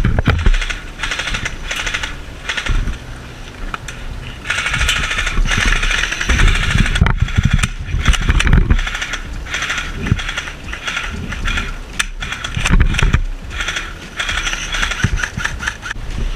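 Airsoft electric guns firing full-auto bursts, a fast mechanical rattle in several runs lasting a second or two each, with short gaps between.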